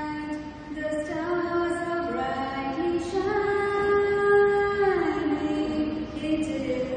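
Slow music with a single voice singing long held notes, gliding smoothly from one note to the next.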